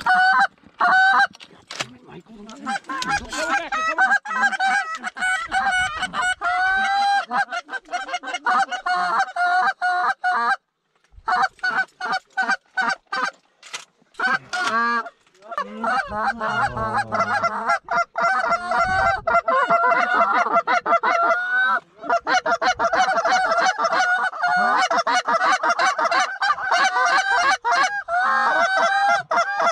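A Canada goose call blown hard and fast by a hunter: a nearly unbroken run of quick clucks and honks, with a few short pauses.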